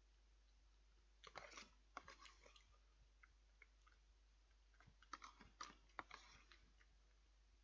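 A person chewing a mouthful of food, with soft wet mouth clicks and smacks in two short spells. The food is peas with leeks and pancetta.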